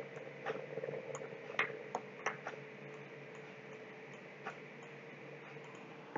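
Computer mouse clicking: several short single clicks, most of them in the first two and a half seconds and one more at about four and a half seconds, over a faint steady hum.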